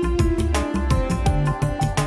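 Background music with a quick, steady beat over held tones and a bass line.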